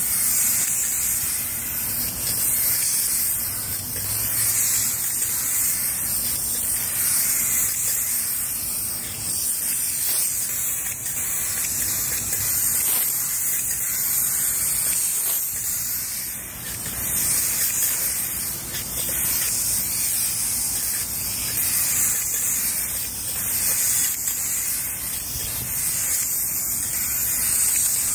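Two-component spray gun hissing steadily as it sprays black Expandothane coating under pressure from a SprayEZ SFT4500 hydraulic proportioner, the spray held on without a break.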